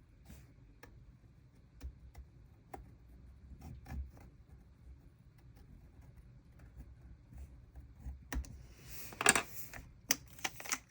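Soft scattered taps and light rustling of hands placing and peeling paper stickers on a journal page, with a louder papery rustle lasting about two seconds near the end.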